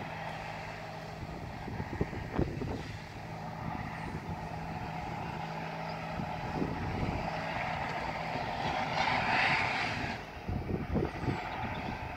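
Distant tractor engine running steadily as it pulls a slurry tanker spreading over a field, with a louder hiss swelling for a couple of seconds near the end.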